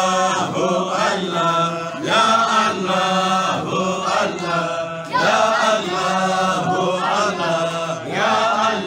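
Sufi dhikr chant: voices repeating 'Allah, Allah, ya Allah' in a cycling phrase over a steady low drone.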